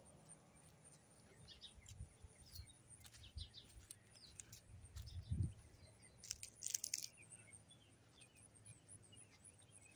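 Quiet outdoor ambience: faint, scattered bird chirps over a thin, steady high insect trill, with a few low rumbles on the microphone and a brief louder flurry of chirps about seven seconds in.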